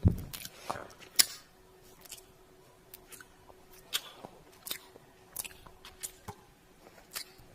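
Kiss sound effects: a series of wet lip smacks and kisses, irregularly spaced at about one or two a second. The loudest come right at the start and just over a second in.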